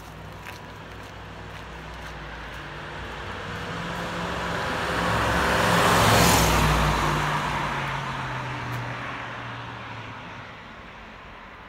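1999 Audi S8 D2's naturally aspirated 4.2-litre V8 driving past with tyre noise, growing louder to a peak about six seconds in and then fading away. The engine note drops in pitch as the car passes.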